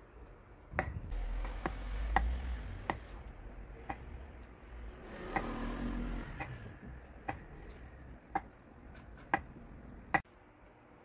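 Kitchen knife slicing through a block of homemade firm tofu. The blade knocks on the wooden cutting board at the end of each cut, about eleven sharp taps spread unevenly, roughly one a second.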